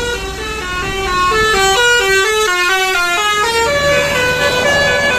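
Bus-mounted basuri telolet musical horn playing a quick melody of short stepped notes, the pitch hopping up and down several times a second. About four seconds in the tune changes to longer held notes.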